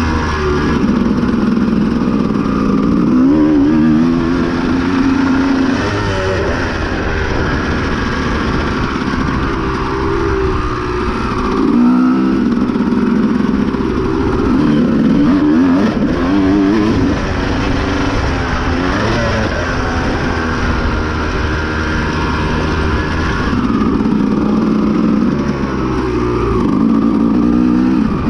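Honda CR250 two-stroke dirt bike engine being ridden hard on a dirt motocross track, revving up and dropping off over and over as the rider works the throttle through the corners and straights. It is heard close up from a camera on the bike.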